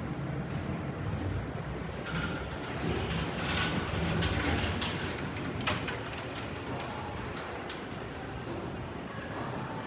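Inside the cab of an MEI hydraulic elevator: a steady low hum of the running elevator, with a louder rush of noise swelling and fading in the middle and a single sharp click a little past halfway.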